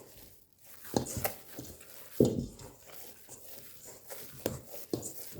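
A few short, soft thumps and squishing sounds of pizza dough being handled, the loudest a little past two seconds in.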